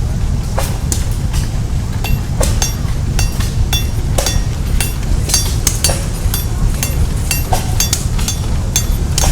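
Blacksmith's hammer striking metal on an anvil: a run of sharp, ringing blows, a few at first and then quick and irregular from about two seconds in. A steady low rumble continues underneath.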